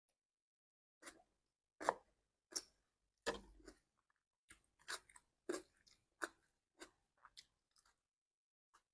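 Close-up chewing of crunchy food: a string of irregular, short crisp crunches that begin about a second in.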